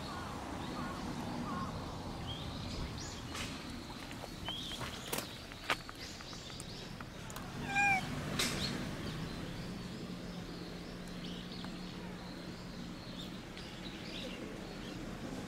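Brown tabby stray cat gives one short meow about halfway through. Faint high bird chirps and a few sharp clicks sound around it.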